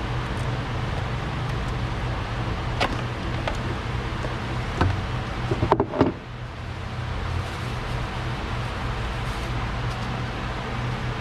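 Dodge Ram pickup's V8 engine running steadily, with new ignition coils fitted after a misfire. A few sharp clicks sound around three to five seconds in, and a short clatter of knocks comes at about six seconds.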